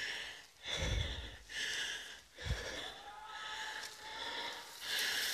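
A man breathing hard and fast close to the microphone, short panting breaths repeating a little more than once a second.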